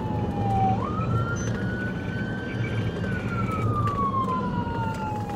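Police car siren in wail mode, heard from inside the pursuing patrol car: its pitch slides slowly down, jumps back up under a second in, climbs gently for a couple of seconds, then slides slowly down again. The car's engine and road noise run underneath.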